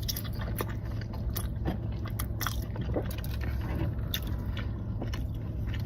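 Close-miked mouth chewing a big bite of loaded fries with crispy fried onions: irregular wet smacks and crunchy clicks throughout, over a steady low hum.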